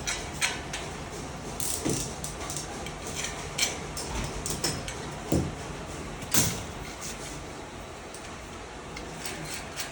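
Metal microwave-stand parts being handled and fitted together: irregular light knocks, clinks and scrapes, the loudest about six seconds in.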